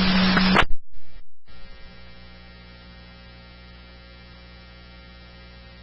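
Police scanner radio: a transmission's hiss and hum cut off about half a second in, and after a brief dropout a low, steady electrical hum remains on the open channel between transmissions.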